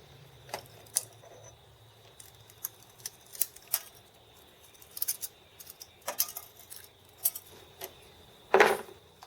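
Irregular light metallic clicks and taps of small metal workshop parts being handled, with one louder clunk near the end.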